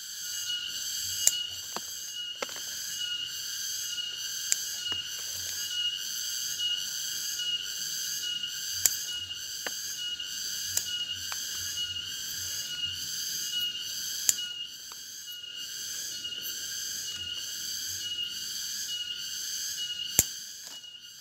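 Several sharp snips of scissors pruning cubeb shoots, spaced irregularly, the loudest near the end. Under them runs a steady high-pitched insect chorus pulsing about twice a second.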